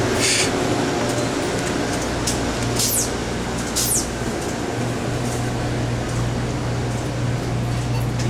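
Store room tone: a steady low mechanical hum under a noisy wash, with two brief high swishes about three and four seconds in.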